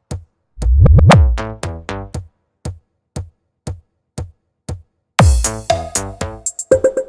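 Bass-heavy electronic battle-mix remix: a booming bass hit that falls in pitch, then a sparse stretch of single sharp drum-machine ticks about twice a second, then heavy bass and busy percussion come back in about five seconds in.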